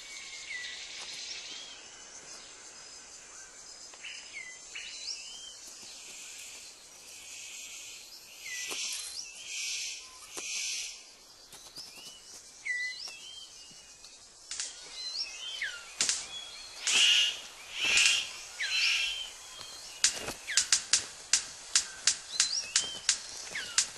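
Bird calls: short, sliding chirps recurring throughout, with a few louder buzzy bursts. From about 20 seconds in comes a fast, even run of sharp clicks, several a second.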